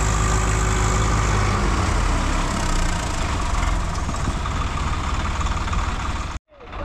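Three-cylinder diesel engines of two Swaraj 855 tractors running in deep mud, one tractor working to pull the other free. The engine sound is steady and cuts off suddenly near the end.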